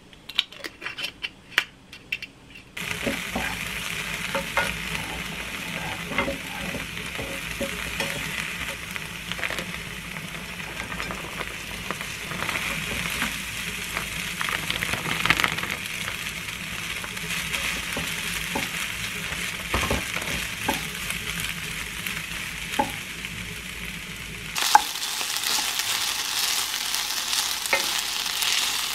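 Kimchi fried rice sizzling in hot oil in a frying pan, stirred with a wooden spatula, with scrapes and taps of the spatula throughout. A few sharp clicks come first, then the sizzle starts suddenly about three seconds in, and it turns louder and brighter near the end.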